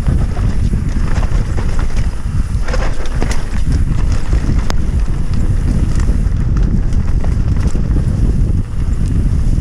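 Wind buffeting the camera microphone as a mountain bike rides down a muddy trail, with the rattle and sharp knocks of the bike over rough ground.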